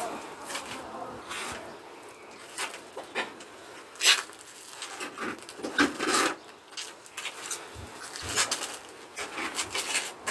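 Irregular scraping, rubbing and knocking of hand work at a concrete block wall, with a sharp knock about four seconds in and louder bursts of scraping around six and eight seconds.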